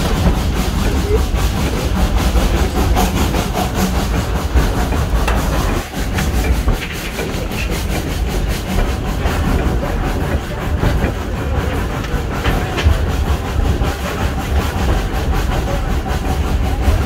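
Steam train under way, heard from an open coach right behind a 1927 SACM 040 T tank locomotive working uphill: a steady, loud running rumble with wheels clicking over the rails and some steam hiss.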